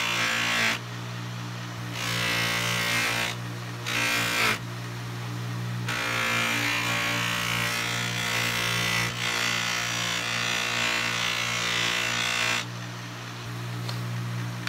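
Electric bench buffer with a loose cloth buffing wheel running steadily, with repeated stretches of hissing rush as a wooden knife handle is pressed against the spinning wheel. The longest pass runs from about six seconds in to near the end. The wheel is putting a sheen on the dense, oily wood.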